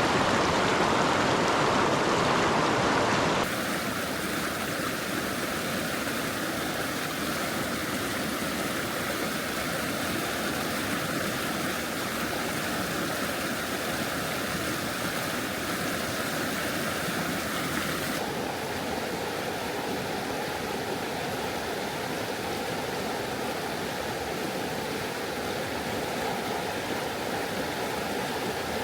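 Steady rushing of a flowing river. The sound abruptly drops in level and turns duller about three and a half seconds in, and its tone abruptly changes again about eighteen seconds in.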